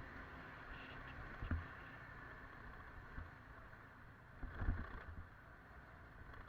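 Wind and road noise from riding a motorcycle, picked up by a helmet-mounted camera: a steady rush with a low rumble, and two short low thumps, about a second and a half in and near five seconds in.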